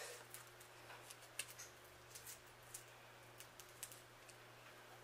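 Faint, irregular small clicks and crackles of a boiled jumbo shrimp's shell being peeled off by hand.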